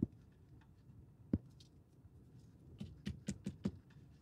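Faint clicks and taps of handling: one sharp click a little over a second in, then a short run of small clicks and taps around three seconds.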